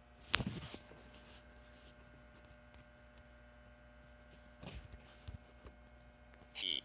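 Faint steady electrical hum with a sharp knock shortly after the start and a few softer knocks later. A short high-pitched beep sounds near the end.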